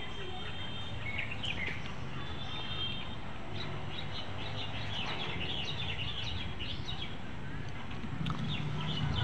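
Small birds chirping in quick, dense bursts of short high calls, busiest in the middle of the stretch and again near the end, over a steady low hum.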